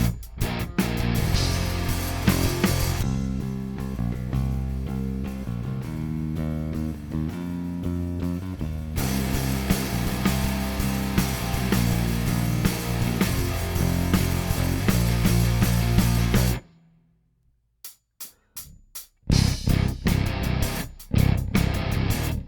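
Lakland Skyline 55-02 five-string active electric bass being played, with sustained notes moving in steps. The playing stops suddenly about three quarters of the way through, a few short muted plucks follow, then sharper picked or plucked notes start again.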